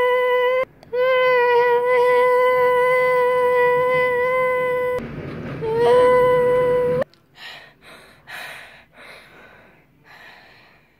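A child's voice holding one long, steady high note, like a drawn-out shout or hum. It breaks off briefly under a second in, goes rough for about a second, and stops about seven seconds in. Faint scattered scuffing noises follow.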